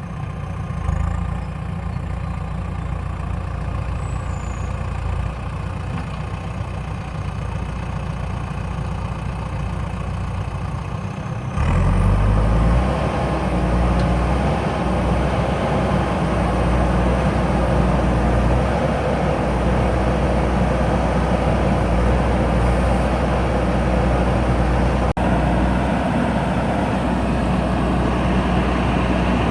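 JCB backhoe loader's diesel engine running steadily, becoming suddenly louder and heavier about twelve seconds in.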